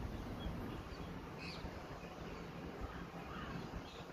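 Faint outdoor background noise with a few distant bird calls, the clearest about one and a half seconds in.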